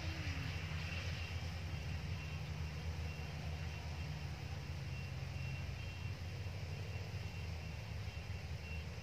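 Distant rice combine harvester, a Yanmar, running steadily as it harvests: a low, even engine drone.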